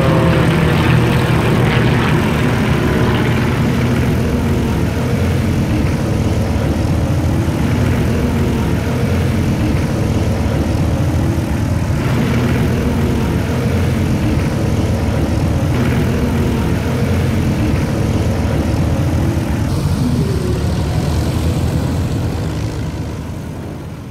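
Formation of many Mudry CAP light aerobatic planes flying overhead, their propeller engines blending into one continuous drone, with pitches sliding down at the start as the planes pass. The sound fades out near the end.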